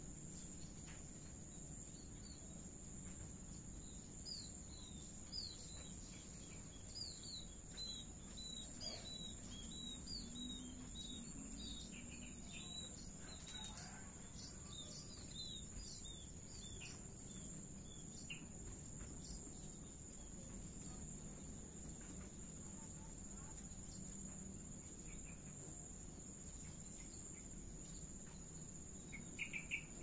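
Crickets trilling steadily at a high pitch over a low rumble of distant traffic. Between about four and eighteen seconds in, a bird calls in runs of short, quick chirps, and a short, louder burst of sharp notes comes just before the end.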